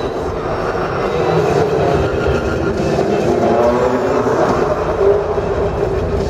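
McLaren MP4-12C GT3 race car's twin-turbo V8 running hard as it is driven around the arena, its note rising and falling with the revs and echoing through the hall.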